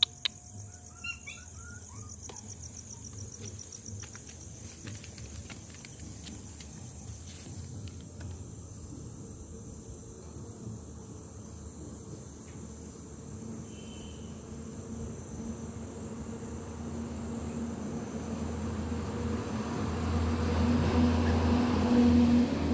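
Crickets trilling steadily for the first part. A low hum then builds slowly louder through the second half.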